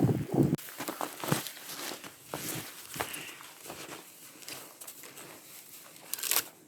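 Snowshoe footsteps crunching in deep snow, irregular and fading, with a louder crunch near the end. Wind buffets the microphone for the first half-second.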